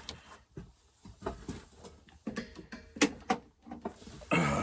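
Scattered light clicks and knocks, a few each second, of things being handled and set down.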